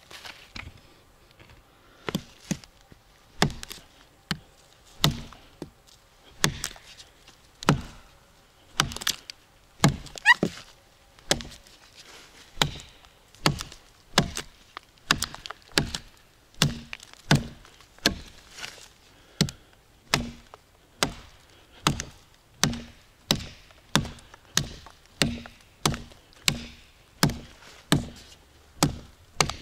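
A new Viking axe chopping into a tree, a long steady run of sharp strokes, each with a short thud. The strokes come roughly one a second at first and quicker in the second half.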